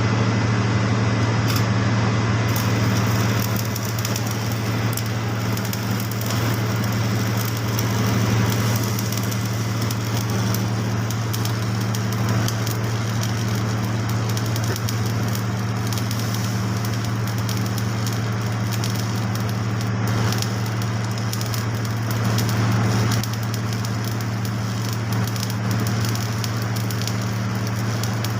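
Electric arc welding on a dryer heat exchanger: a continuous crackling sizzle over the welding machine's steady hum.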